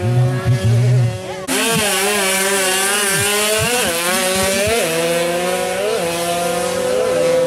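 155cc two-stroke drag bike engine at full throttle on a drag run, growing much louder about a second and a half in, its pitch climbing and then dropping back with each upshift, about three times. Other bikes' engines run steadily underneath.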